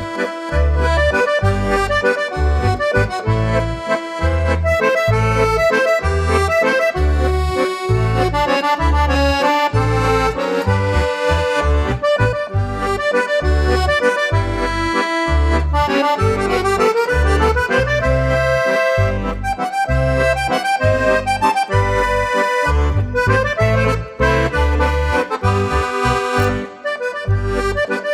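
Instrumental background music with an accordion lead over a steady bass beat.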